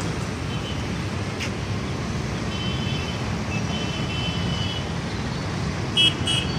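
Road traffic running with a steady low rumble, and several short, high vehicle horn toots, the loudest about six seconds in.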